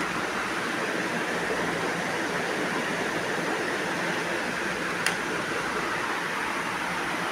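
Steady rushing background noise, with one sharp click about five seconds in.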